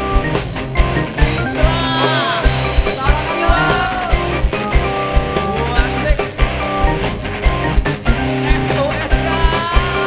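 Live dangdut band playing, with electric guitars, bass guitar and drums keeping a steady beat, and a melody line bending in pitch about two seconds in and again near the end.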